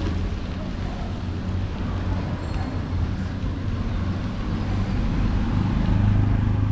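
Road traffic with vehicle engines running, and a low engine hum that grows louder near the end as a vehicle comes close.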